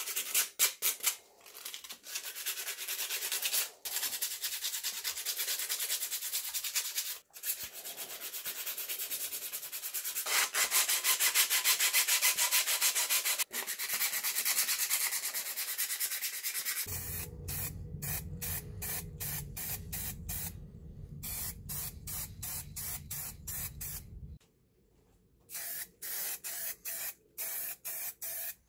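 Abrasive paper rubbed by hand over cast-metal breast drill parts patched with filler, in quick back-and-forth sanding strokes that scrape steadily for long runs. Near the end the sanding breaks off briefly, then short, evenly spaced strokes follow.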